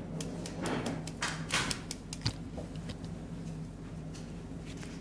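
Handling noises on the surgery table: a few light clicks and two soft rustling swishes in the first couple of seconds, then a sharp tick, over a steady low hum.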